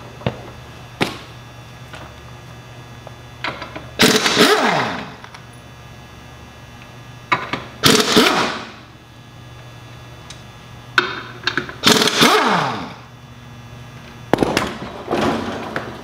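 Pneumatic impact wrench loosening and spinning out the bolts of a tractor's rear wheel, in about four short bursts a few seconds apart, some ending in a falling pitch.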